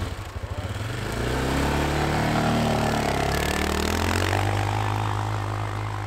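4x4 ATV engine revving up over the first couple of seconds as it pulls away, then running steadily at high revs.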